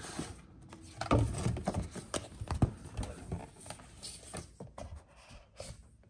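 A keyboard's packaging box being opened and handled by hand: irregular knocks, taps, scrapes and rustles, loudest a little after a second in.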